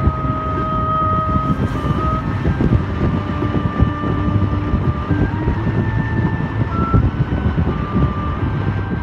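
Steady engine and road rumble of a car driving along a winding road, with a slow melody of held notes from music playing over it.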